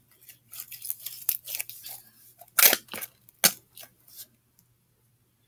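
Spatula scraping against a mixing bowl to clean slime and shaving cream off it: a run of short scrapes and clicks, then two louder knocks about a second apart, then a few faint scrapes.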